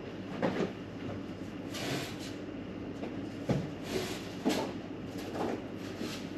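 Irregular knocks and short scrapes of building work, with one sharper knock about halfway through.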